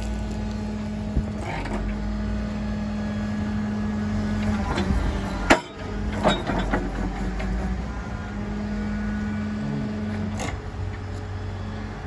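A hydraulic excavator runs steadily with a constant hum while its CAT G310B demolition and sorting grapple is worked. A few sharp metallic clicks and knocks come through, the loudest about halfway through.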